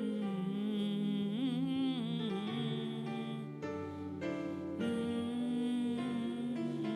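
Worship music: a voice humming long, wavering held notes without words over sustained instrumental accompaniment.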